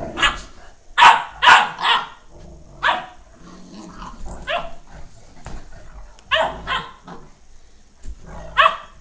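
Newfoundland dogs, a mother and her puppy, play-fighting: a series of short, sharp barks, several bunched close together, with low growling in between.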